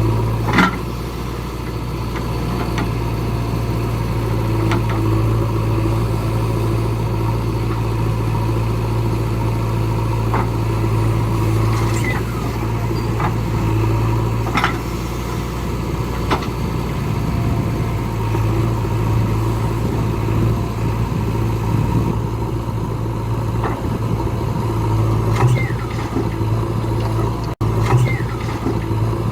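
Diesel engine of heavy earthmoving machinery running steadily, with a few sharp clicks and knocks now and then.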